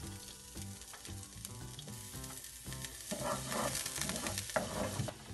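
Chopped garlic sizzling in hot coconut oil in a nonstick wok, stirred with a wooden spatula. The sizzle and scraping grow louder from about three seconds in.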